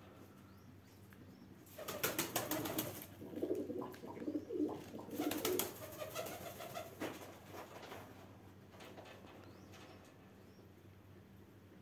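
Pigeon cooing, a run of low throaty calls from about two seconds in to about seven seconds, mixed with quick fluttering strokes, then quiet background.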